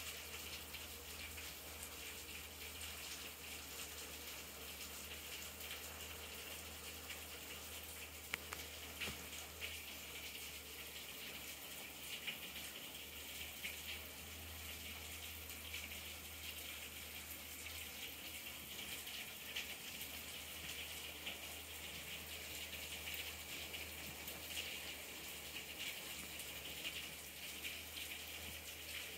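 Hard rain falling steadily as an even hiss, heard from behind a window pane, with scattered taps of single drops.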